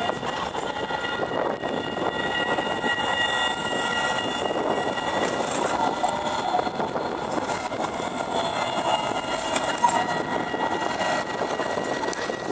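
Alstom Citadis electric tram moving off along the rails and passing, a steady rumble of wheels on track under a high whine of several steady tones from its motors.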